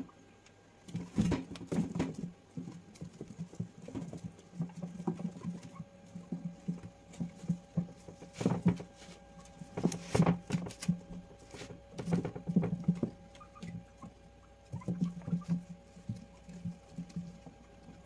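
Guinea pigs scurrying about their cage: irregular patter and scratching of small feet on the bedding pad, with occasional light knocks, coming in bursts.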